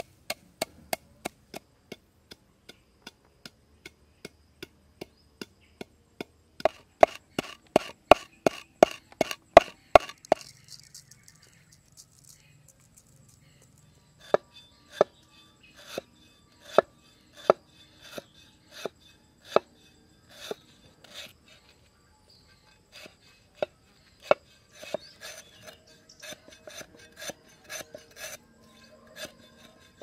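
A wooden pestle pounding grain in a clay mortar, a steady run of knocks that gets faster and louder up to about ten seconds in. After a short pause, a cleaver slicing lemongrass on a wooden chopping board: single knocks about a second apart, quickening near the end.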